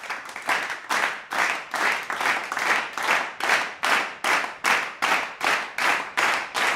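End-card soundtrack loop: a rhythmic run of hissing whooshes, between two and three a second, each swelling up and then cut off sharply.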